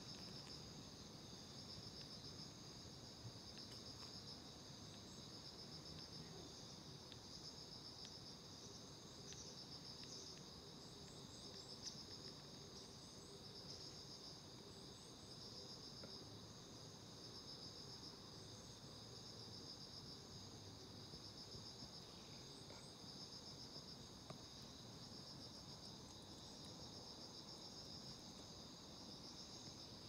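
A chorus of singing insects, crickets, trilling steadily in a high, finely pulsing drone. A few brief faint chirps sound above it.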